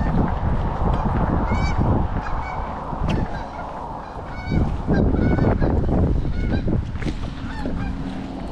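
Geese honking, many short calls in quick succession, over a steady low rumble.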